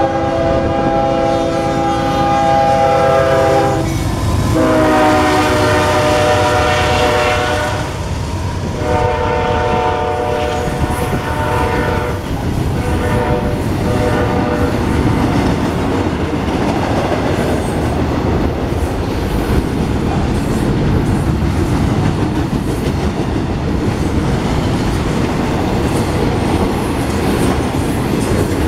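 CSX intermodal freight train sounding its multi-tone locomotive air horn in about four long blasts over the first half, a warning for the road crossing. The double-stack well cars then roll past close by with a steady rumble and the clickety-clack of wheels over the rail joints.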